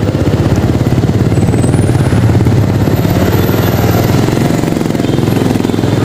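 Motorcycle engine running at low speed in slow traffic, heard from the rider's seat as a rapid, even pulsing.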